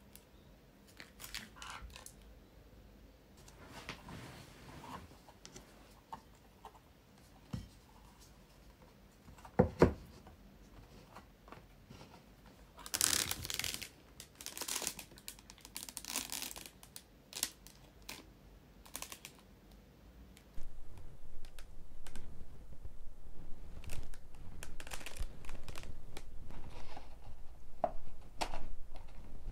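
Human stomach and intestines gurgling, recorded close to the belly after a meal: scattered crackles and squelches, with one strong short thump about ten seconds in. The background noise becomes louder and steadier about two-thirds of the way through.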